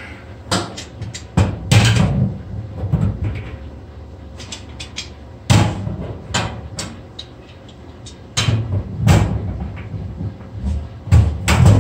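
Tongue-and-groove pliers clanking and scraping against the stainless steel drain strainer and sink bowl, in irregular knocks in several clusters, as they are worked inside the drain opening to turn and unscrew the sink's drain assembly.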